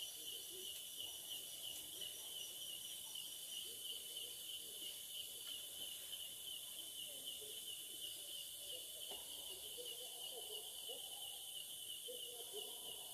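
Night insects, crickets or katydids, chirring steadily in a high pulsing chorus. Faint, short, low wavering sounds come and go in the second half.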